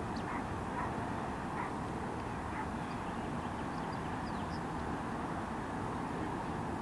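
Steady outdoor background noise: an even low rumble with a few faint, short high chirps scattered through it.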